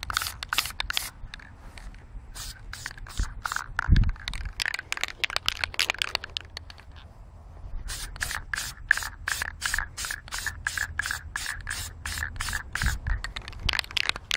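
Aerosol can of Krylon camouflage spray paint hissing in rapid short bursts, about four a second, as a rifle handguard is coated. A low thump about four seconds in.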